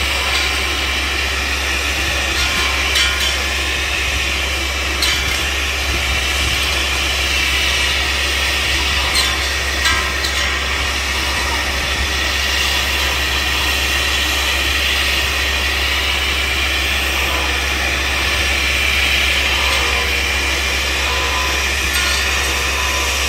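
Jarraff boom tree-trimming machine running steadily, a constant machine drone with a high whine that slowly wavers in pitch, and a few faint knocks.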